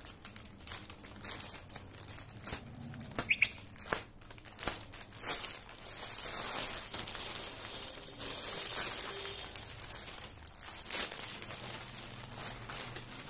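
Plastic courier packaging being opened and handled by hand, crinkling and rustling with irregular sharp crackles.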